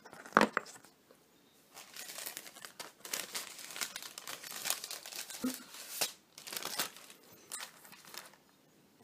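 Clear plastic photo sleeve crinkling and crackling as it is handled, a dense run of rustles lasting several seconds, after a single sharp tap about half a second in.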